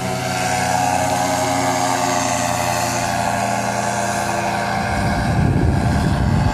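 Paramotor engine and propeller running steadily in flight. About five seconds in, a low, rough noise joins it.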